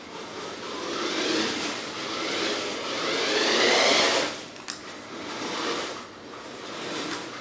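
RC car's motor whirring as it drives, surging and easing with the throttle. Its pitch climbs to the loudest burst about four seconds in, then drops off sharply.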